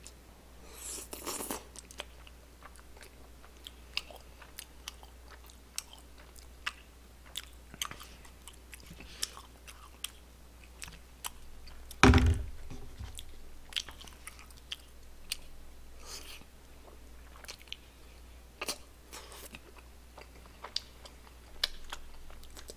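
Close-miked chewing and mouth sounds of a person eating chewy tteokbokki rice cakes: scattered wet smacks and small clicks throughout. One loud thump about halfway through.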